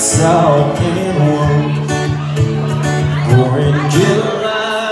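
Solo acoustic guitar strummed in a country style, with a man's voice singing long held notes over it.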